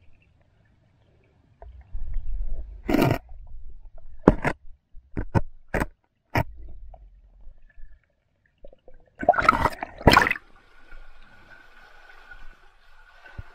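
Muffled underwater noise: a low rumble broken by a series of sharp knocks and clicks. About ten seconds in the microphone comes out of the water and steady running water takes over.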